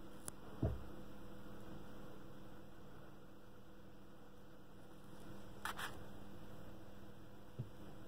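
Quiet room tone with a low steady hum, broken by a soft thump just over half a second in and two brief rustles a little before six seconds.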